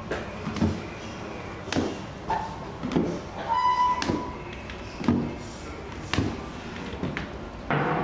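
High-heeled sandals stepping down wooden stairs and onto a wooden floor, a sharp heel click about once a second.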